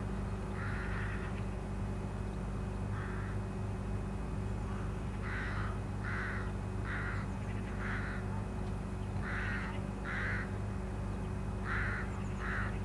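A bird calling repeatedly, about ten short, harsh calls in pairs and runs, over a steady low hum.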